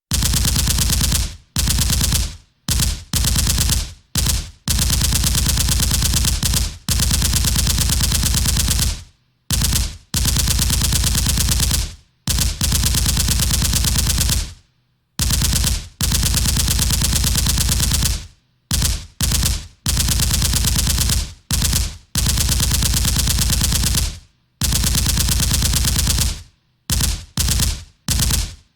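Automatic gunfire sound effect: about twenty bursts of rapid fire, some a fraction of a second and others about three seconds long, with short gaps between them.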